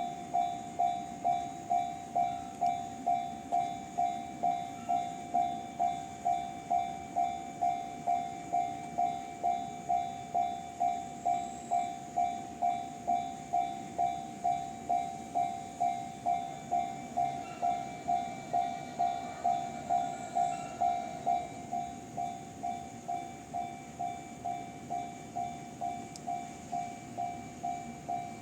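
Japanese railway level-crossing alarm (the JR standard electronic warning sound) ringing steadily, an even clanging tone about twice a second over a low background rumble.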